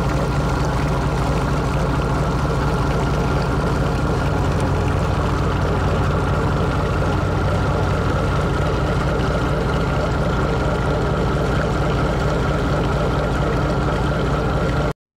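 A wooden fishing boat's diesel engine running steadily under way: an even low drone over the wash of water along the hull. It stops abruptly just before the end.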